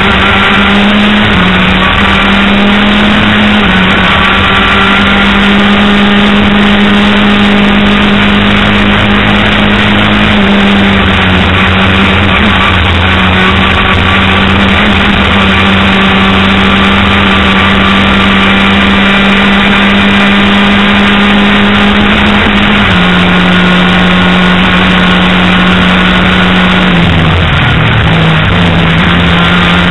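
A racing vehicle's engine, heard loud from an onboard camera at speed, running at a steady high pitch with small shifts up and down. Near the end the pitch dips briefly and climbs back.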